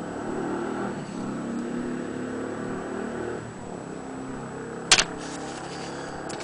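Willcox & Gibbs sewing machine running with a steady mechanical hum that eases off about three and a half seconds in. A single sharp click about five seconds in is the loudest sound.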